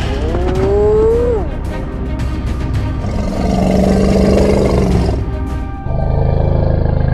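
Animal-cry sound effects over background music: a short pitched cry that rises and falls about a second in, then a long, loud roar from about three seconds in, followed by another roar near the end.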